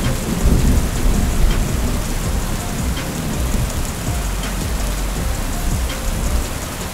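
Hurricane-force storm wind buffeting the microphone in a heavy, uneven low rumble, under a steady hiss of wind-driven rain.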